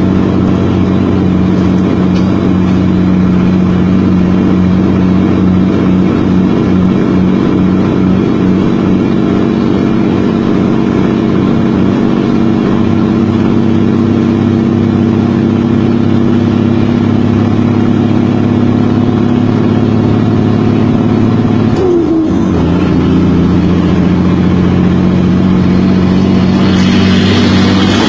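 Heavy truck's diesel engine pulling steadily, heard from inside the cab. About three-quarters of the way through the engine pitch breaks and dips for a gear change, then settles back into a steady pull, and a hiss builds near the end.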